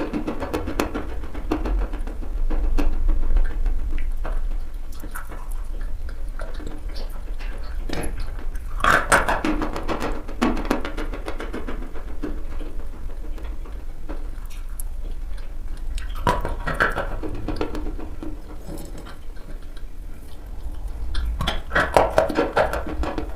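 Someone biting and chewing eating chalk close to the microphone: many sharp, crisp crunching clicks, with louder clusters of crunches about 9, 16 and 22 seconds in, over a steady low hum.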